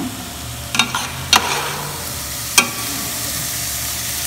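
Diced sausage sizzling as it browns in butter in an aluminium pot. A metal spoon stirs it, clanking sharply against the pot a few times in the first three seconds.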